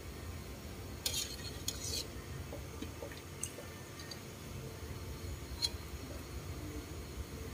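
Metal ladle clinking and scraping against a steel pot while scooping rice balls from the water: a short scrape about a second in, then a few single light clinks, over a steady low hum.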